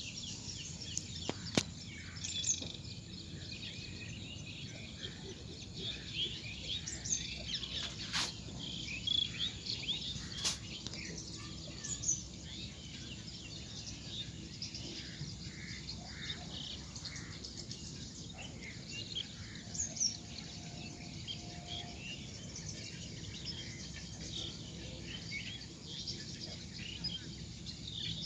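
Many birds chirping and calling at once, short high chirps overlapping throughout, over a steady background hiss, with three sharp clicks in the first half.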